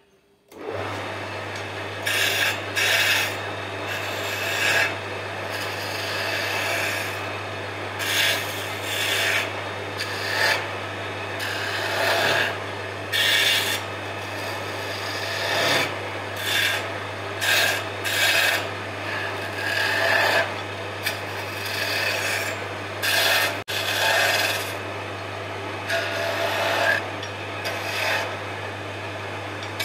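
A wood lathe's motor comes on about half a second in and runs with a steady low hum, while a hand-held turning tool cuts into the spinning wooden spindle in repeated scraping passes, each a second or so long, as beads are shaped into the wood.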